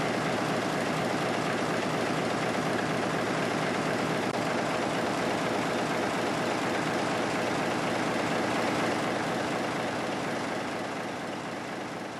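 Historic multi-cylinder engine with exposed valve gear running steadily, a dense, even mechanical clatter that fades away near the end.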